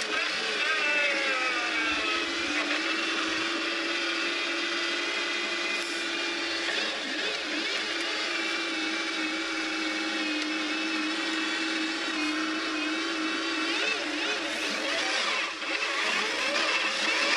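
Car engine heard from inside the cabin, its pitch falling as the car slows over the first couple of seconds, then running steadily at low speed, and rising again with revs near the end.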